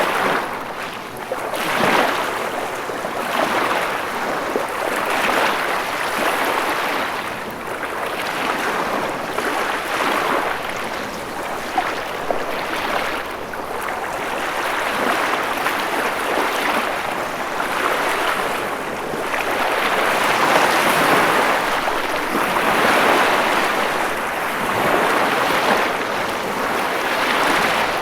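Ocean waves washing in and breaking continuously, a steady rush of surf that swells and eases every couple of seconds, loudest a little after the middle.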